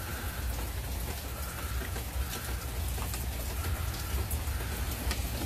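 Rain falling steadily after a thunderstorm, with scattered sharp drips and a low rumble underneath.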